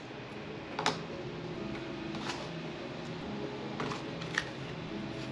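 A handful of small sharp clicks, spaced about a second apart, from small screws, washers and plastic speaker adapter rings being picked up and set down on a cardboard-covered workbench, over a faint steady background hum.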